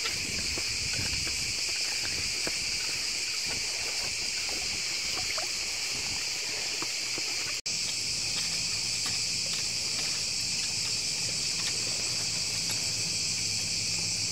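Cicadas singing in a steady, shrill chorus. The sound breaks off for an instant about halfway through, and after that a low steady hum runs underneath.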